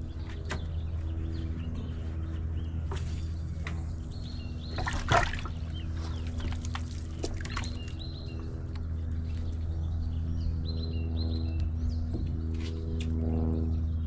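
Boat engine idling with a steady low hum, while birds call in short high chirps. A single sharp knock about five seconds in.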